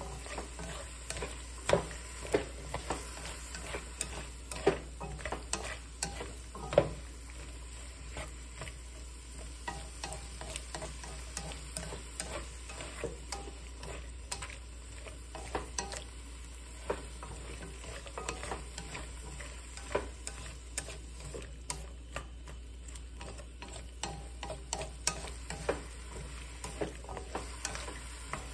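Sliced bitter melon and garlic sizzling in oil in a stone-coated nonstick frying pan while wooden chopsticks stir and toss it, tapping and scraping against the pan at irregular moments.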